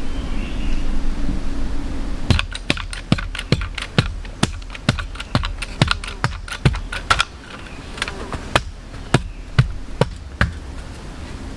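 Small hand shovel chopping and scraping into packed earth, a quick run of sharp strikes about three a second starting about two seconds in.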